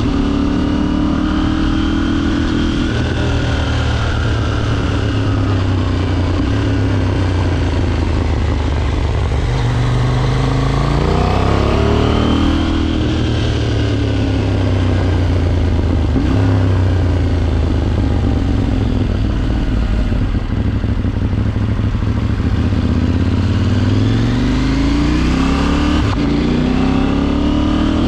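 KTM 790's parallel-twin engine heard from the bike while riding. Its pitch climbs under acceleration and drops back at gear changes several times, over a constant rush of road noise.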